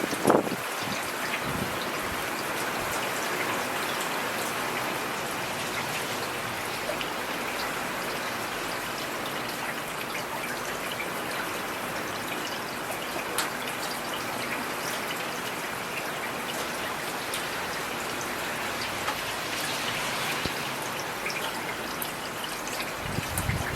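Steady rain falling on a street, with many individual drops ticking through the even hiss. There is a brief low rumble right at the start and again near the end.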